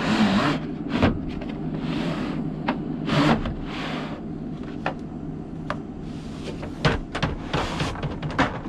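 Plastic drawers of a Gearwrench mechanics tool case sliding in and out, with several soft sliding swishes and a series of short knocks and clicks as the drawers and the tools in them are handled.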